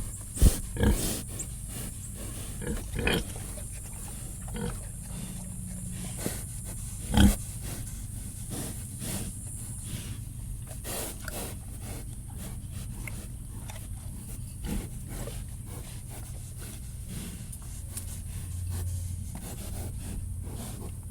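Pigs grunting in a sty: irregular short grunts, louder ones in the first second and again about seven seconds in, with shuffling and rustling between them and quieter grunts later on.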